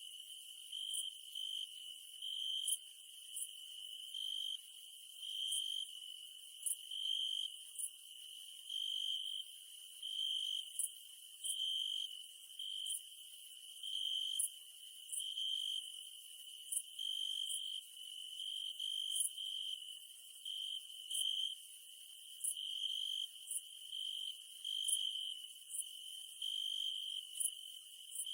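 Insects trilling: a steady high-pitched trill that swells into louder pulses about once a second, with sharp high ticks at a similar pace.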